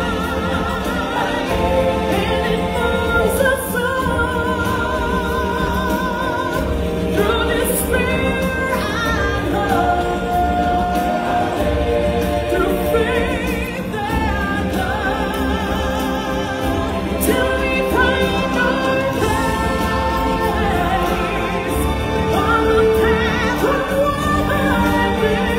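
Live stage-show music: a woman singing lead with vibrato into a microphone over a choir and full instrumental backing, continuous and loud.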